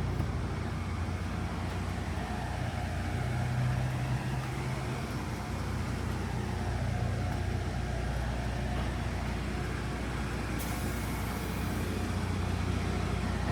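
Steady low engine hum of a motor vehicle running. A short hiss cuts in about eleven seconds in and stops about a second later.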